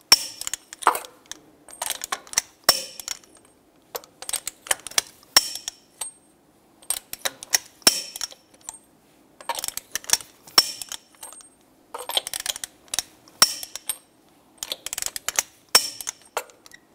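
Torque wrench ratcheting on a truck wheel's lug nuts: short bursts of rapid metallic clicks every second or two, as the nuts are rechecked at 140 foot-pounds.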